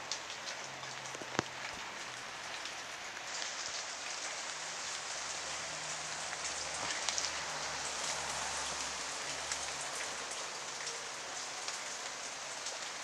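Steady rain falling, a dense hiss with scattered sharper drops ticking close by; the hiss grows a little stronger about three seconds in.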